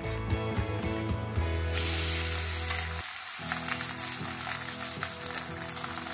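Oil sizzling in a hot, thick-bottomed kadai, starting suddenly about two seconds in and running on steadily as a rice-flour koyya rotti fries in it. Background music plays underneath.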